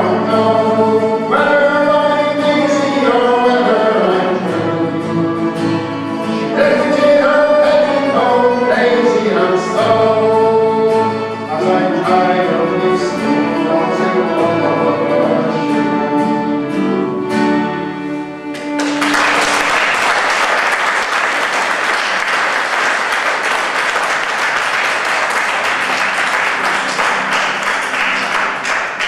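Traditional Irish ensemble of mandolin, wooden whistle, fiddle, banjo and guitar playing a lively tune, which ends about 19 seconds in. Audience applause follows and runs to the end.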